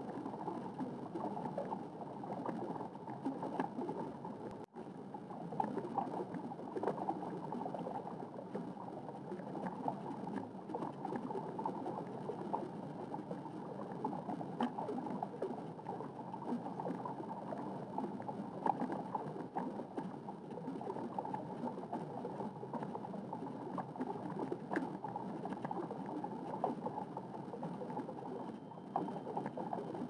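Underwater ambience: a steady watery rush with gurgling and fine crackle, with a momentary dropout about five seconds in.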